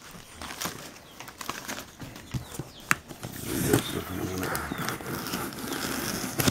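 Scissors and hands working a cardboard shipping box open and lifting out its styrofoam insulated liner: scattered sharp clicks and knocks, then a longer stretch of rubbing and scraping in the second half.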